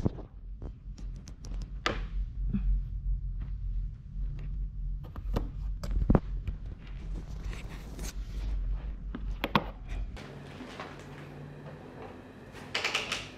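Plastic toddler trike being handled and rolled: scattered clicks and knocks over a low rumble, with the rumble stopping about ten seconds in and a short clatter near the end.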